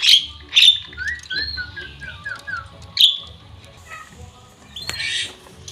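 Javan myna calling: loud, sharp chirps just after the start and again about three seconds in, with a run of short falling whistled notes between them. A brief noisy hiss comes near the end.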